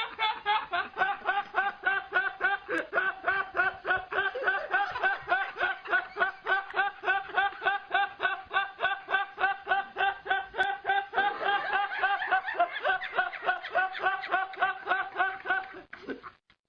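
A meme laughing sound effect: one high-pitched voice laughing in rapid, even pulses, about five a second, almost without a pause. The laugh stops briefly just before the end.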